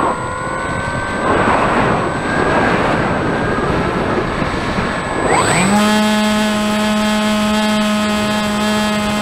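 Radio-controlled model plane's motor and propeller heard from an onboard camera in flight: a rush of air with the motor pitch rising and falling, then a little over halfway through the motor settles into a steady, loud drone.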